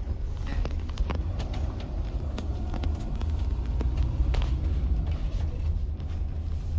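A camping-car driving, heard from inside the cab: a steady low engine and road rumble with scattered light clicks.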